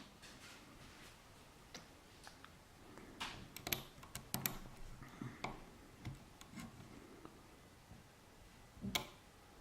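Faint, irregular clicks and ticks of a lock pick working the pin stacks of a five-pin T-KEY euro cylinder under tension, with a sharper click about nine seconds in.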